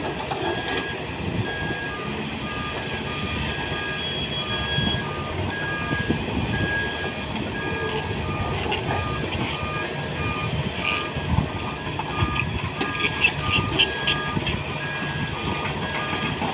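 Two heavy-vehicle reversing alarms beeping at once over the running engines of excavators and tipper trucks. A higher-pitched alarm beeps about once a second, and a lower one beeps about twice a second, joining about three seconds in. Near the end comes a quick run of sharp knocks.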